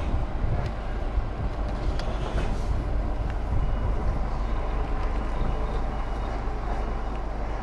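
Articulated lorry's diesel engine running steadily, with a few light clicks and rattles.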